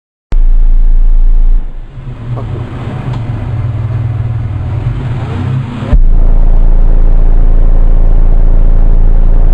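Car-audio SPL subwoofer system playing a steady, very deep bass tone loud enough to overload the microphone. It drops back to a lower level about a second and a half in, then comes back at full force with a sharp click about six seconds in.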